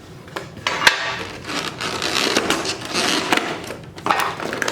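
Packaging of a Pokémon card collection box being handled: rustling and crinkling with a string of sharp clicks and taps, the loudest about a second in.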